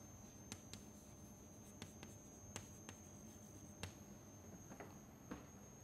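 Chalk on a blackboard as words are written: faint, irregular taps and scratches, about a dozen small clicks.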